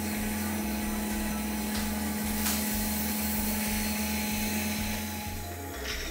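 Dental suction tube running in the mouth, a steady hissing hum that stops about five and a half seconds in.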